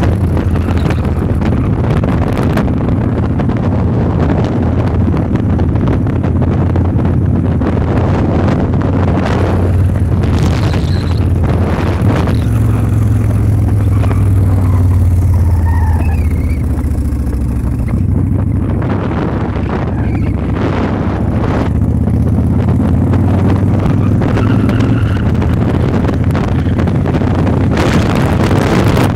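Victory Highball's big V-twin engine running at road speed, drowned in heavy wind buffeting on the microphone. The engine eases off briefly a little past halfway, then pulls again.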